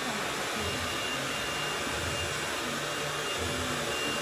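Steady rushing machine noise with a faint, thin high whine held throughout.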